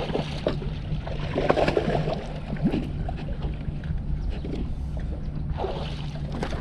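A hooked bass splashing and thrashing at the water's surface as it is fought and swung out of the water, over a steady low rumble. The splashes come right at the start, again a second or two in, and once more near the end as the fish is lifted out.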